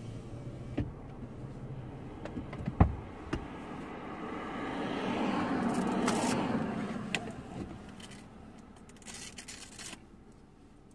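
Car noise with a sharp click about three seconds in, then a vehicle sound that swells and fades over a few seconds in the middle.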